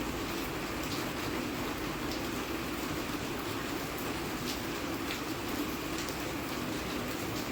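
Steady rain, a constant hiss with scattered single drops ticking sharply here and there.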